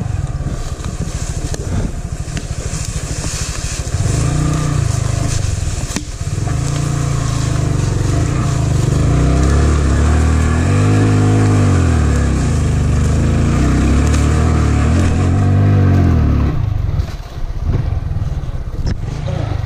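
Honda Grom's 125 cc single-cylinder four-stroke engine running under way, its revs rising and falling as it is ridden, pulling hardest about halfway through and easing off near the end.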